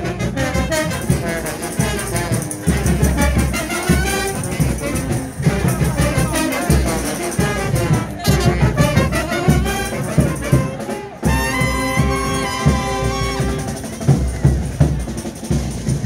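Frevo brass band, trumpets and trombones, playing live over a drum beat.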